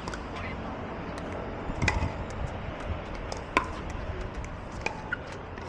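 Pickleball paddles hitting a plastic ball in a rally: sharp hits about every one and a half seconds, the loudest near two seconds in, with fainter hits between them over a steady low background noise.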